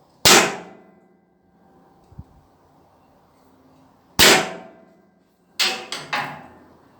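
Sharp metal clangs on steel, each with a brief ring: one just after the start, one about four seconds in, then three in quick succession near the end.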